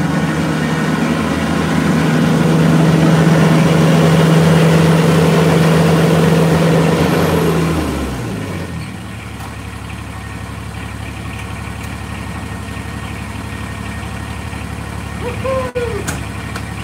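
Kubota BX23S compact tractor's three-cylinder diesel engine running at high revs, then about eight seconds in the throttle is pulled back and the pitch falls away over about a second into a steady idle.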